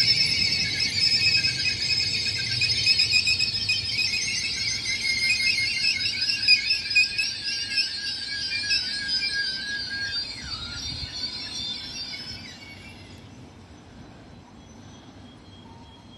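Passenger train's brakes squealing as it slows into the platform: a high, wavering squeal with several tones at once that fades and stops about 13 seconds in, as the train comes to a halt.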